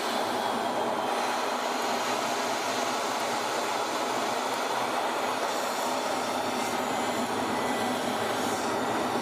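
F-16 fighter jet in a straight-down dive: a steady rushing noise of engine and airflow with no change in pitch or loudness.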